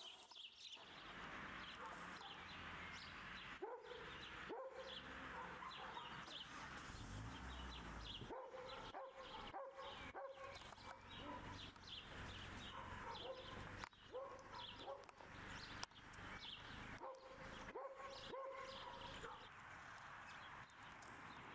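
Rough collie puppies barking and yipping in short, high barks at irregular intervals, a few drawn out into longer yelps near the end.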